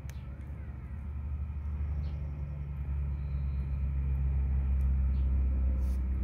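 A low, steady engine-like rumble that grows louder, with a few faint clicks.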